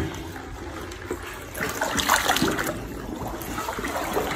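Shallow pond water splashing and trickling as it is stirred, with a few louder splashes about two seconds in.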